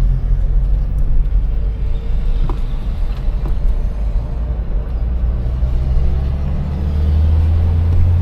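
Car driving on the road: a steady low engine drone with road rumble, growing a little louder near the end.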